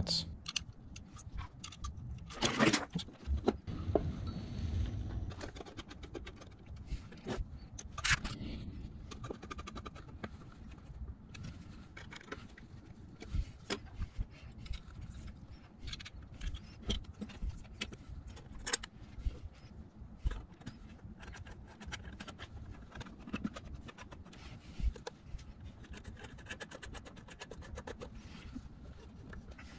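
Small #8 machine screws and nut inserts clinking as they are handled, with scattered clicks, light knocks and scrapes from a screwdriver driving them to fasten stepper motor driver modules to the base. A few louder clatters come about 2.5 and 8 seconds in.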